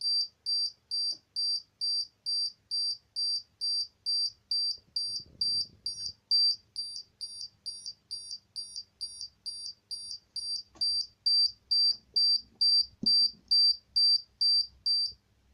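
Arduino Uno alarm siren: a buzzer beeps one high-pitched tone over and over, about two and a half beeps a second, set off by a PIR motion sensor. The beeping stops near the end as the alarm goes off once the sensor no longer detects motion.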